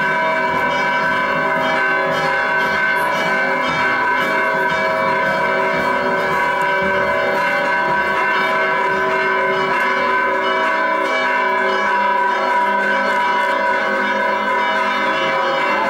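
Church bells pealing, several bells ringing together in a dense, continuous peal.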